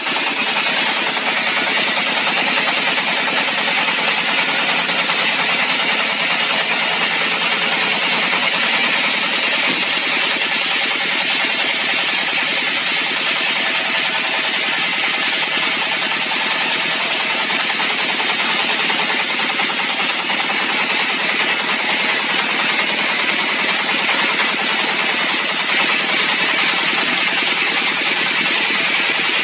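Trailer-mounted OSCAR band sawmill running steadily at full noise, its band blade cutting through a log.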